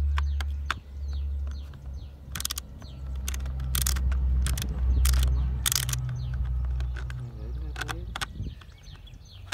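Wind rumbling on the microphone, with a handful of sharp plastic clicks and knocks as the side cover of a Parkside cordless chainsaw is pushed onto its bolt and worked into place. Birds chirp faintly.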